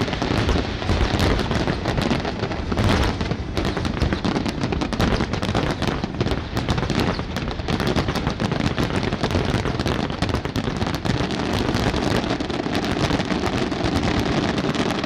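Aerial firework shells bursting in a rapid, continuous barrage of bangs and crackles.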